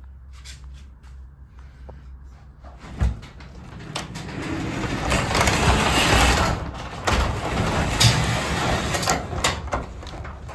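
Cloplay sectional garage door moving on its tracks: a rumbling run that builds over several seconds, with several sharp clunks along the way.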